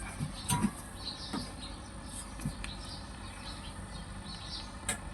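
A few light clicks and knocks from handling, with faint bird chirping in the background.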